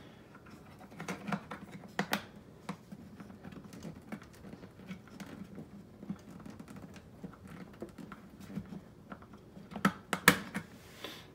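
Small plastic clicks and taps from a Bosch dishwasher's detergent dispenser door being fitted back on and handled by hand, with two louder sharp clicks near the end.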